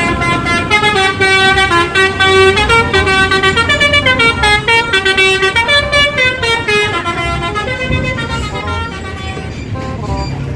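Indonesian 'telolet' bus horn playing a tune of short notes stepping up and down in pitch, over the low rumble of the bus engine.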